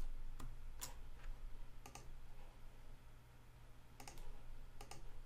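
Scattered clicks of a computer mouse and keyboard, a few single clicks and then a small cluster about four seconds in, over a faint low hum.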